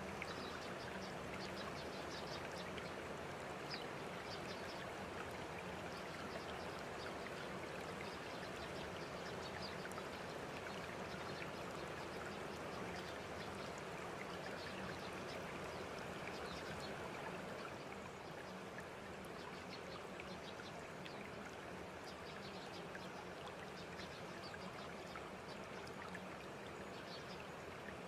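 Steady rushing noise like a running stream, sprinkled with faint short high-pitched ticks or chirps; it gets slightly quieter about two-thirds of the way through.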